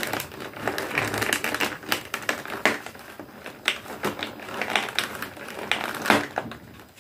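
Small cardboard advent calendar box being handled and opened by hand: irregular clicks, taps and crinkling of card and plastic packaging.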